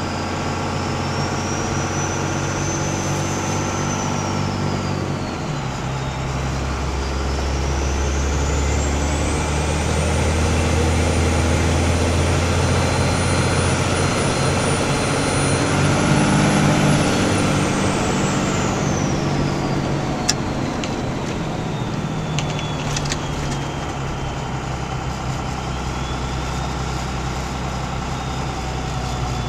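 Cummins 24-valve 5.9 L straight-six turbo diesel revved up from idle, held at about 2500 rpm, then let back down. The B&D Super B turbocharger's whistle climbs with the revs, holds steady and high, then falls away as the engine slows.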